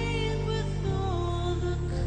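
Performance backing music: sustained low chords that change about once a second, with a wavering melody line above them.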